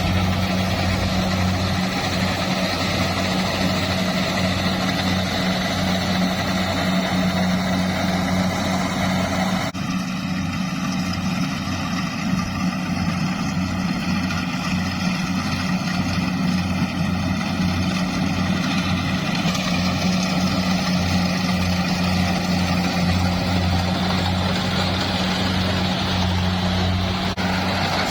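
Farm machine's engine running steadily at an even speed, a continuous low hum, with a brief shift in the sound about ten seconds in.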